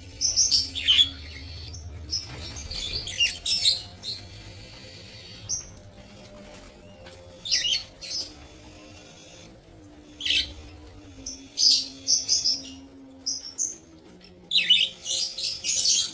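A flock of budgerigars chirping and chattering in short, shrill bursts with brief pauses between them, busiest near the start and again toward the end.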